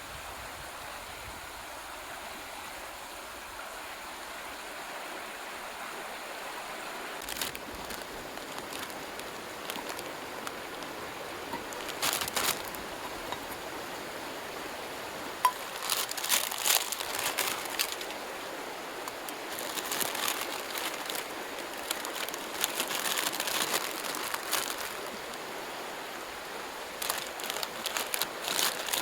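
Mountain stream running steadily, with bursts of crinkling and crackling from about seven seconds in, loudest in the middle and again near the end.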